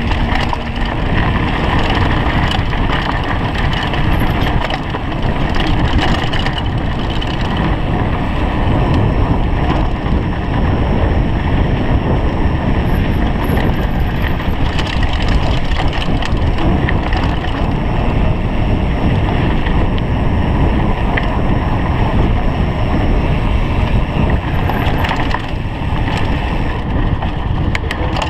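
Mountain bike rolling fast over dirt singletrack: a steady rumble of tyres on the trail with the frame and parts rattling over bumps, mixed with wind noise on the microphone.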